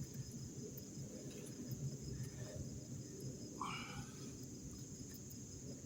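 Crickets and other night insects trilling steadily in a high, continuous chorus over a low rumbling background. A single short call stands out about three and a half seconds in.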